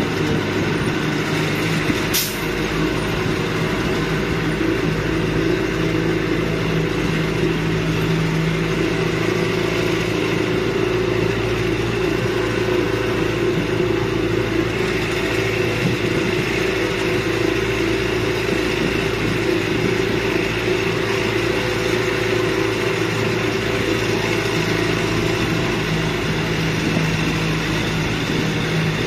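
Land train's engine running steadily as the train drives along, with road noise and a single sharp click about two seconds in.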